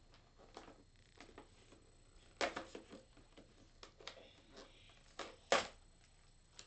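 Plastic and cardboard toy packaging being handled and pulled open: scattered crinkles and clicks, with the two loudest snaps about two and a half seconds in and again about five and a half seconds in.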